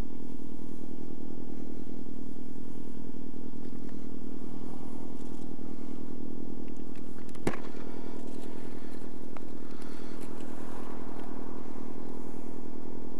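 Motorcycle engine idling steadily, with a sharp click about seven and a half seconds in.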